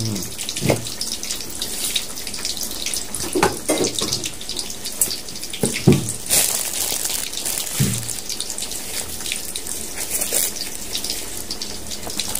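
A steady hiss like running water or sizzling throughout, overlaid by clicks and rustles of banana-leaf food wrappers being handled.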